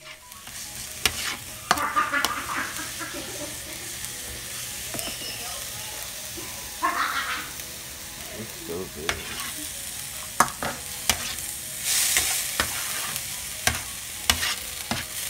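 Diced green and red bell peppers and onion sizzling in oil in a nonstick frying pan while being stirred with a slotted spatula. The spatula clicks sharply against the pan now and then, and the sizzle swells briefly twice, near the middle and near the end.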